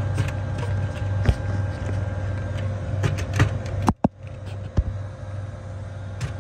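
Steady low machinery hum with scattered sharp clicks and taps of a screwdriver working the terminal screws of a 3-pole contactor. The sound breaks off for an instant about four seconds in.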